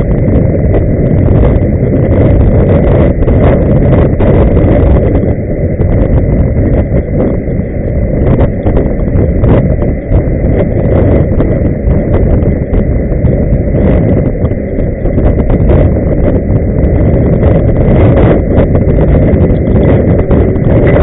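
Loud, steady rumble of a camera carried along in an inline skating crowd: skate wheels rolling on asphalt mixed with wind on the microphone, with a thin steady high tone over it.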